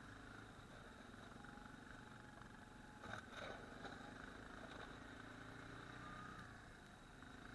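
A plow-equipped ATV's engine running faintly at a steady speed, with a few light knocks about three seconds in.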